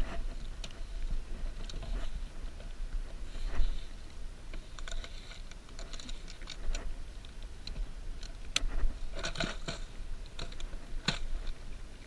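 Scattered small clicks and rattles of fishing gear being handled in a plastic kayak, including a plastic tackle box of jig lures. The sharpest clicks come about eight and a half and eleven seconds in.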